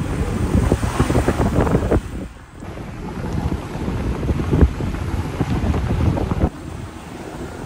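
Wind buffeting the microphone over the low rumble of a moving vehicle, gusting unevenly. The sound changes abruptly twice, dipping about two seconds in and dropping quieter about six and a half seconds in.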